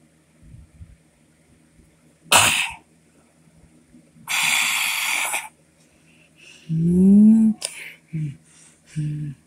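A person's cough-like burst, then a hiss about a second long, then a few short voiced sounds near the end.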